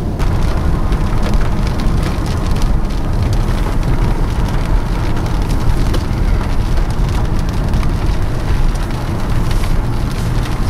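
Rain hitting a moving car's windshield and roof as many fine ticks, over a steady low rumble of wind and road noise.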